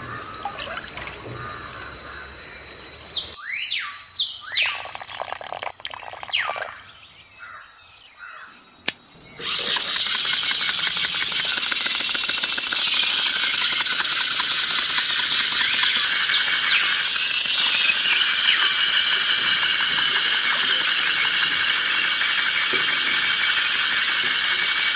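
Outdoor chirping of birds and insects: a few falling whistled bird calls over a quiet background, then from about ten seconds in a sudden, steady, louder bed of dense chirping.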